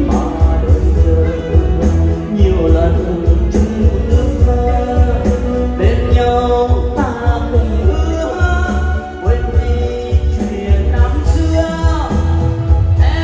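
A man singing a tân cổ song, Vietnamese modern song blended with cải lương vọng cổ, over an amplified band backing with a steady heavy bass beat.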